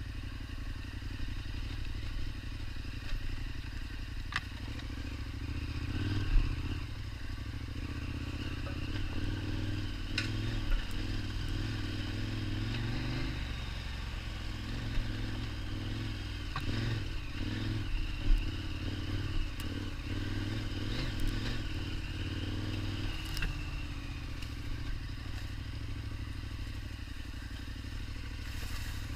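KTM 1290 Super Adventure's V-twin engine running steadily while riding a rough trail, with occasional sharp knocks and clatter.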